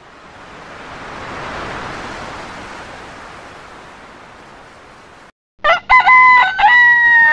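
A soft wash of sea-surf noise swells and fades over about five seconds. After a brief gap a rooster crows loudly, a cock-a-doodle-doo in several short segments ending on a long held note that drops away.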